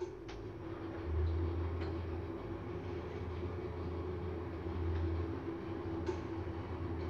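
Schindler 3300 MRL passenger lift travelling upward, heard inside the car: a steady hum with a low rumble that grows stronger about a second in, and a few faint clicks.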